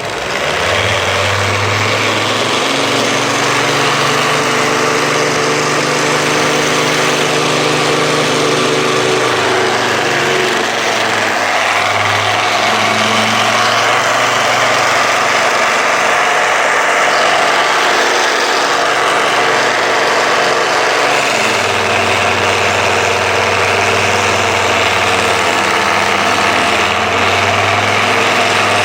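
An electric drill motor, repurposed to drive a homemade belt sander, runs continuously with a loud whirring hum. Its pitch shifts a few times as the speed or load changes.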